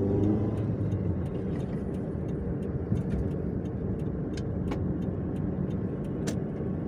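Perodua car's engine and tyre noise heard from inside the cabin while driving at an even pace, a steady low hum with a few faint light clicks.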